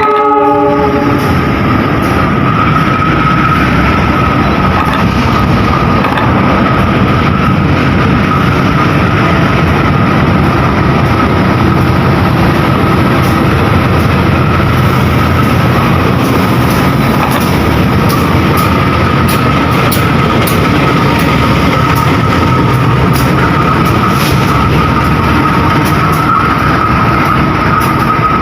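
Argo Parahyangan passenger train rolling into the station: a loud, steady rumble of wheels on rail with a constant high-pitched whine, and scattered sharp clicks in the later part. The locomotive's horn chord cuts off right at the start.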